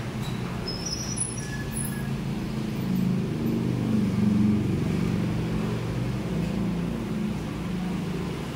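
A steady low engine rumble, like a motor vehicle running nearby, growing louder about three seconds in and easing off after about five seconds.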